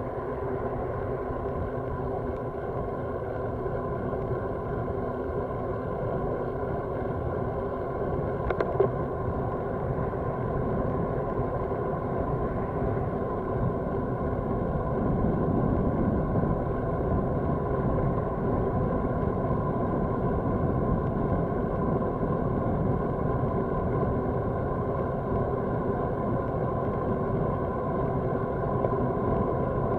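Steady wind rush and road rumble picked up by a camera on a moving road bike, with one sharp click about nine seconds in. It grows somewhat louder past the halfway mark.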